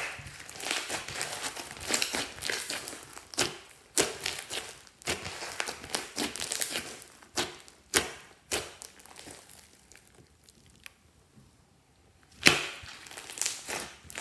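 Hands squishing and stretching glossy slime studded with small beads: wet crackling and squelching, broken by sharp pops as trapped air pockets burst. The loudest pops come right at the start and about twelve seconds in.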